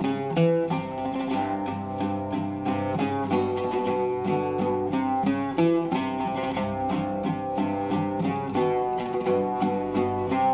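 Arabic oud with a cedar soundboard, maple-and-wenge bowl and Pyramid strings, played solo: a melodic passage of quick plucked notes, some left ringing.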